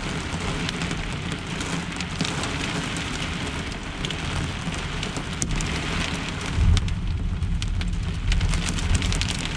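Hail and heavy rain drumming on a pickup truck's camper shell, a dense steady patter with many sharp ticks of hailstones striking. A low rumble of thunder comes in about two-thirds of the way through.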